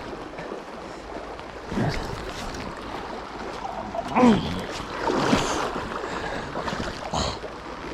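Steady rush of river current, with a few short voice calls and exclamations breaking over it, the loudest a little past the middle.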